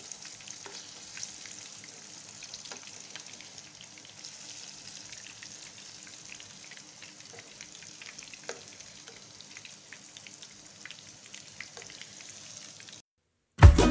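Food frying in hot oil in a pan: a steady sizzle with scattered small pops and crackles, which stops about a second before the end.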